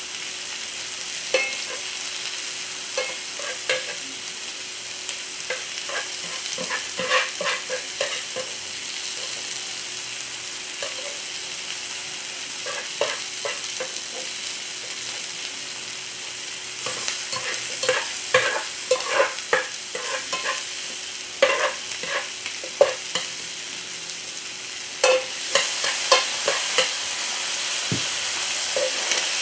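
Food sizzling as it fries, with bunches of quick clicks and taps of a cooking utensil against the cooking surface as it is stirred or turned. A faint steady hum runs underneath.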